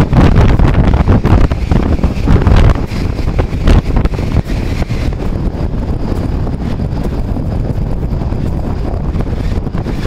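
Strong wind buffeting the camera microphone: a loud low rumble, gustier in the first four seconds, then steadier.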